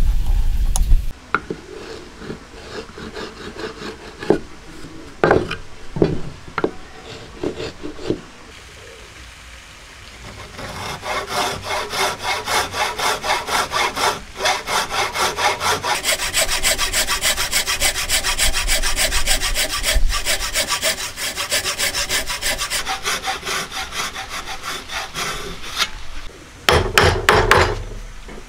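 Hand-sawing hardwood with a wooden frame saw: steady, evenly repeating back-and-forth strokes through the middle and most of the latter part. A few light knocks come before it, and a cluster of sharp knocks near the end as a chisel is struck into the wood.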